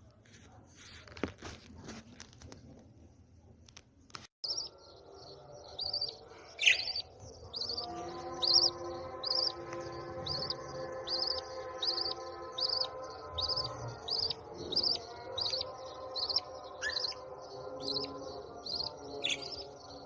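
Newly hatched budgerigar chicks peeping in the nest pot: short high chirps repeated evenly about twice a second, with a few louder falling chirps among them. A steady hum of several tones runs under them through the middle and later part. Soft rustles and clicks come in the first few seconds.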